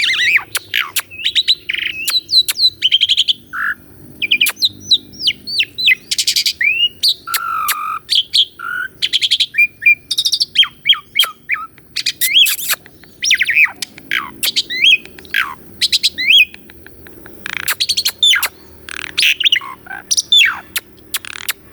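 Asian pied starling (jalak suren) singing a long, varied song: quick swooping whistles mixed with chattering and harsh rasping notes, hardly pausing.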